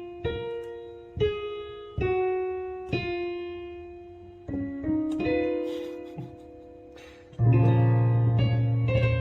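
Background music on a keyboard, likely an electric piano. Notes are struck about once a second and each one fades out. Near the end a low held bass note comes in and the music gets louder.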